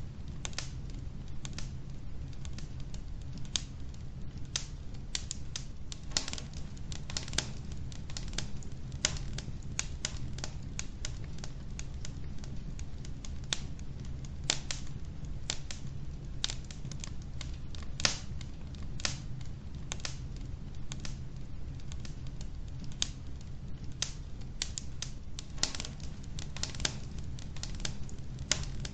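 Wood logs burning in a fireplace: a steady stream of irregular sharp crackles and pops over a low, steady rumble of the fire.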